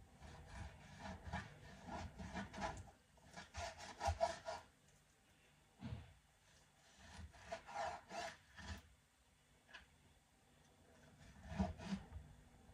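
Large kitchen knife sawing through raw meat on a cutting board: four spells of quick back-and-forth strokes with short pauses between them, and a few sharper knocks of the blade.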